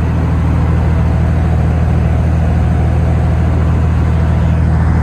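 Heavy gravel-hauling truck's diesel engine running steadily, a loud, even low drone with road noise over it.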